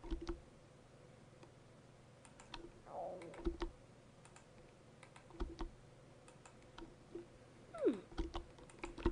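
Scattered computer keyboard keystrokes in small clusters of quick clicks, with a short gliding pitched sound about eight seconds in.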